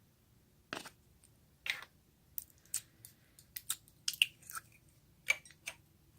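Slime being worked and mixed by hand, giving an irregular string of short sticky clicks and squelches, about a dozen in all.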